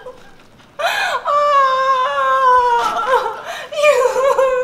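A woman's high-pitched wordless wail, a long held note lasting about two seconds and sagging slightly, then a shorter wavering cry near the end, like playful mock crying.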